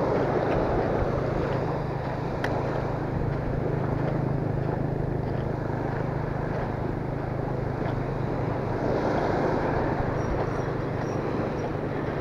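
Wind buffeting the camera microphone over small waves washing up on a sandy beach, with a steady low hum underneath.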